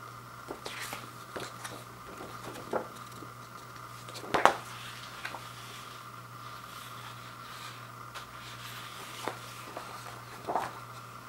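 Glossy paper insert and folded poster being handled and unfolded, rustling and crackling, with one sharp crackle about four seconds in and a few softer ones near the end. A steady hum runs underneath.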